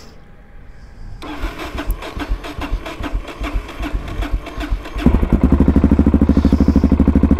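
Yamaha MT-03's 660 cc single-cylinder engine cranked on the electric starter for several seconds, catching about five seconds in and settling into a loud, even idle.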